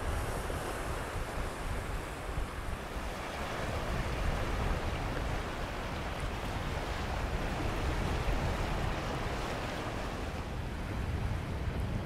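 Small sea waves washing over a rocky lava-stone shoreline, a steady wash, with wind buffeting the microphone in low gusts.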